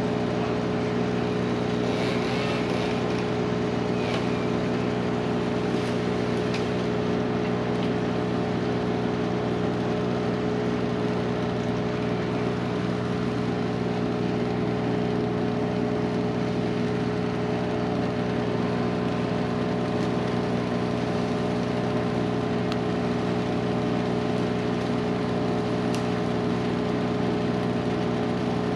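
A machine running steadily with a constant, unchanging pitch.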